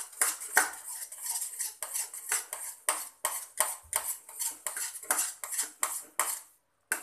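A spatula scrapes round a non-stick kadai as thick semolina halwa is stirred briskly, about three strokes a second. The stirring breaks off briefly near the end.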